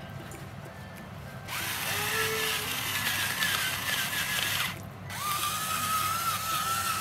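Small electric kitchen appliance motor running in two bursts of about three seconds each: a whine over a hiss that rises as it starts and drops as it stops.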